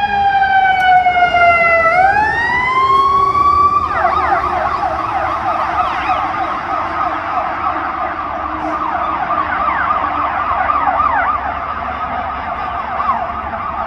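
Siren of a responding Chicago Fire Department rig: a wail falling in pitch for about two seconds, then rising, switching about four seconds in to a rapid yelp that keeps going.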